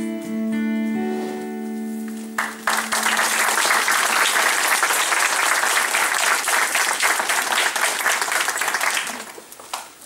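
The last held notes of a song, a sung voice over an acoustic guitar, ring out. About two and a half seconds in, an audience starts applauding, keeps it up for about seven seconds and dies away near the end.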